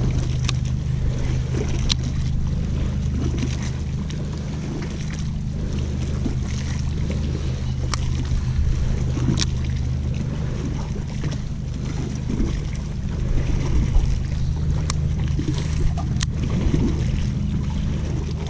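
A boat motor hums steadily and low throughout, with a few sharp clicks scattered through.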